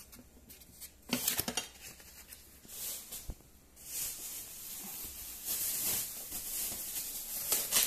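Handling noise from a plastic-wrapped gaming chair: a few sharp clicks and crackles about a second in, then steady rustling and crinkling of the plastic wrap from about four seconds in.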